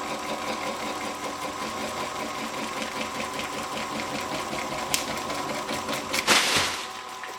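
Wood lathe running with a pineapple spinning on its faceplate while a carbide turning tool cuts into it, a steady hum with a fast even chatter. There is a sharp click a little before five seconds in, then a loud rough burst of noise about six seconds in.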